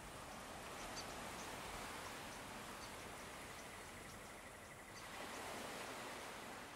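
Faint, steady outdoor nature ambience: a soft, even wash of noise with scattered faint, short high chirps.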